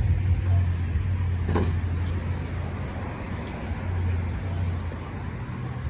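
A motor vehicle's engine running with a steady low hum, with one sharp knock about one and a half seconds in.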